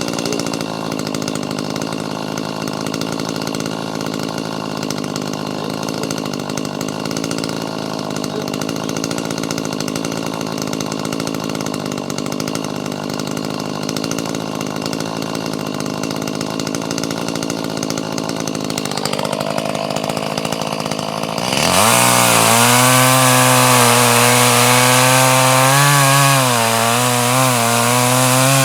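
Gas chainsaw idling steadily for about twenty seconds, then revving to full throttle and cutting, much louder, its pitch dipping and recovering as it works through the wood.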